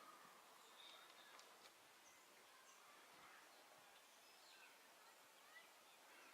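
Near silence: faint outdoor background hiss with scattered short bird chirps.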